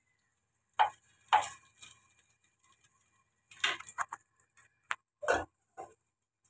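Light knocks and clicks at irregular intervals: two sharp ones about a second in, then a quicker cluster of smaller clicks and knocks in the last few seconds.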